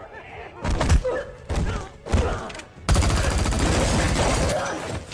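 Film gunfight sound effects. A few loud, separate gunshots come first, then rapid sustained gunfire starts about three seconds in.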